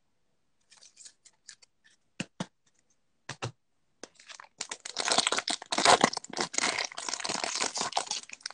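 A few light clicks and two sharper knocks, then from about halfway a foil trading-card pack (2020-21 Select Basketball) being torn open and its wrapper crinkled continuously in the hands.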